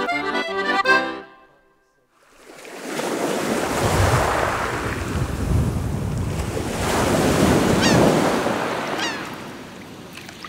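Accordion music ends about a second in; after a short hush, sea waves surge in two long swells and fade. A couple of short high cries sound near the end.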